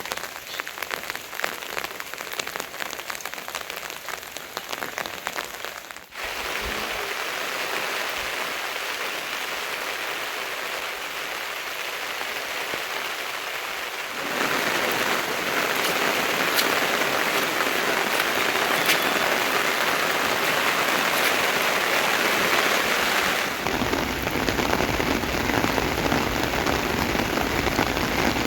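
Rain falling: at first a dense patter of separate drops, then a steady hiss of heavier rain that grows louder about halfway through, the sound changing abruptly a few times.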